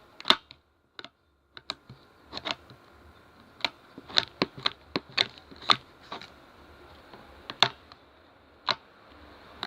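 Slime being played with by hand, making sharp, irregular clicks and pops.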